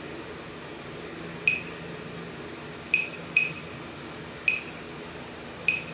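Flip phone keypad beeping as its buttons are pressed to step through the menus: five short, high beeps at uneven spacing, over a steady low hum.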